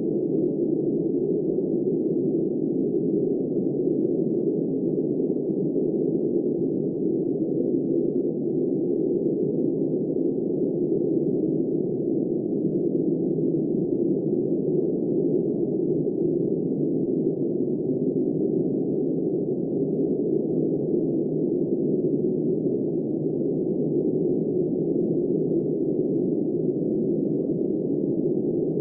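Steady, muffled blizzard wind, a low, dull rush with no high hiss, even in level with no gusts or breaks.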